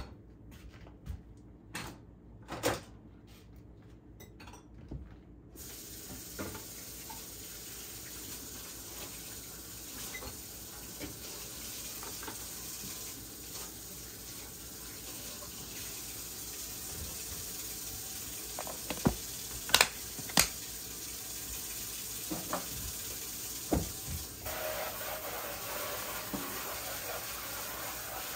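Glass food-storage container being handled and its clip-lock plastic lid snapped shut, with a few sharp clicks of the locking tabs about two-thirds of the way through. A steady hiss runs underneath from a few seconds in.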